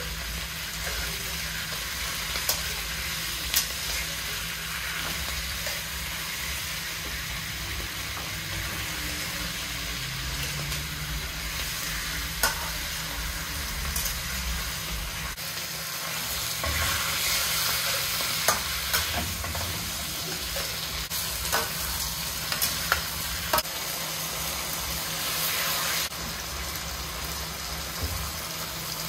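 Chinese cabbage stems sizzling in a hot wok over medium-high heat while a metal spatula stirs and turns them, with scattered clicks of the spatula against the pan. The sizzle swells for a few seconds past the middle.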